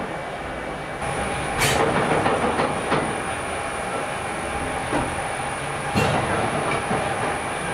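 Triple-expansion rotative beam steam engine running, heard at its condenser air pump and cold-water circulating pump: a steady mechanical clatter with a few heavier knocks at uneven intervals. A thin high-pitched whine sets in about a second in.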